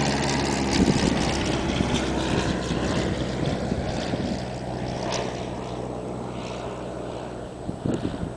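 A distant engine drone, steady in pitch and slowly fading away, with a few faint knocks about a second in and near the end.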